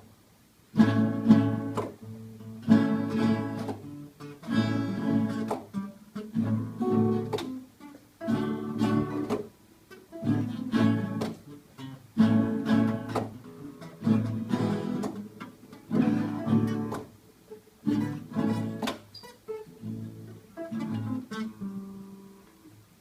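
Guitar strumming the chords of a blues song in an instrumental break, a strummed chord roughly every second with short gaps between.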